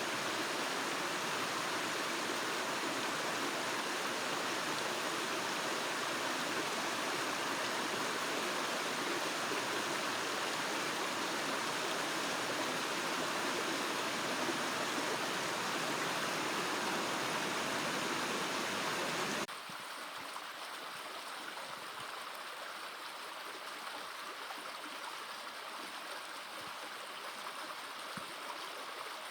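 Creek water rushing over small waterfalls in a steady, even rush. About two-thirds of the way in it drops suddenly to a quieter, thinner flow.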